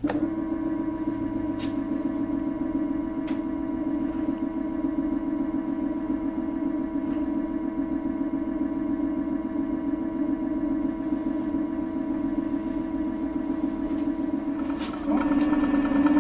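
Electric scooter's motor spinning the raised rear wheel with no load, a steady whine that jumps louder about fifteen seconds in. The brake has been moved aside, so only the motor is heard, without the brake rub that caused the earlier noise.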